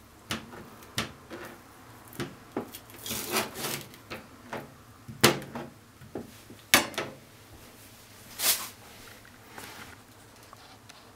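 Kitchen knife knocking and scraping on a plastic cutting board as chunks of raw beef shank are cut and shifted about: irregular sharp knocks, the loudest two about five and seven seconds in, and a short scrape a little past eight seconds.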